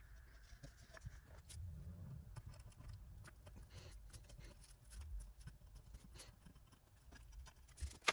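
Faint, scattered light clicks and scratches of hand work on a glass panel on a workbench, with one sharper click near the end.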